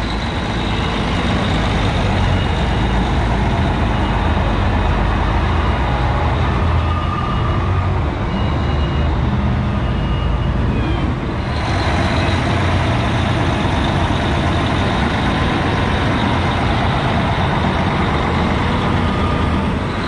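Large diesel engine of heavy farm machinery running steadily, with faint, evenly spaced beeps in the first half like a distant reversing alarm. The sound changes abruptly a little over halfway through.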